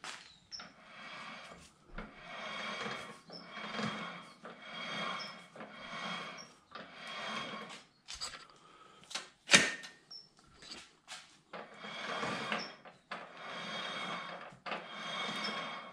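Chain drive from a motorcycle engine to a Quaife gearbox being turned over by hand in short repeated strokes, each about a second long. The roller chain runs over its sprockets with each stroke. There is a single sharp click about halfway through.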